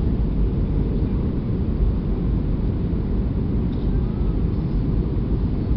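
Cabin noise of an Airbus A320-212 airliner descending on approach to land: a steady, deep rumble with no breaks or changes.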